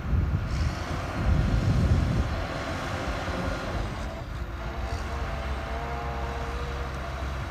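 Distant jet engine noise from a Boeing 777 on the runway after landing. A broad rumble, louder for about a second in the first half, settles into a steadier sound with a faint whine over it.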